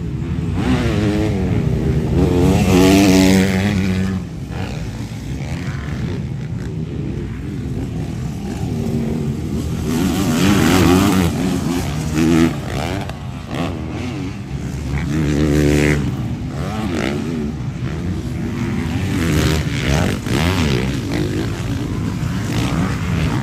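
Motocross bikes racing on a dirt track, their engines revving up and down as they accelerate, shift and back off. Several bikes pass, loudest about 3 seconds in, around 11 seconds and again near 16 and 20 seconds.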